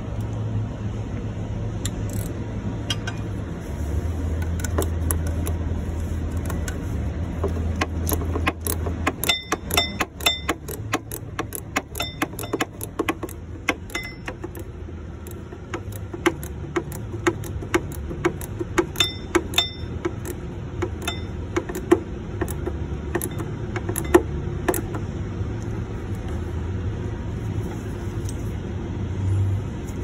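Hand tools on a truck's fan hub: a ratchet and metal tools clicking and clinking irregularly, some strikes ringing briefly, over a steady low hum.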